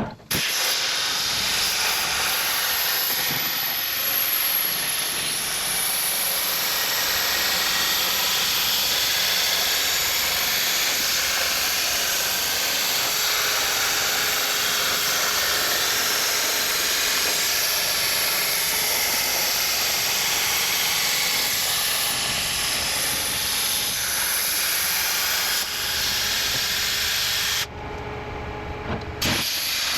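CNC cutting torch cutting steel plate: a steady loud hiss that begins with a sharp pop, drops away briefly near the end, then starts again.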